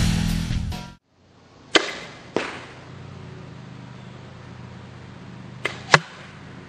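Arrows being shot at bag archery targets: two pairs of sharp thwacks, each a bow shot followed by the arrow striking, one pair about two seconds in and a louder pair near the end. A faint steady hum runs underneath, and intro music cuts off about a second in.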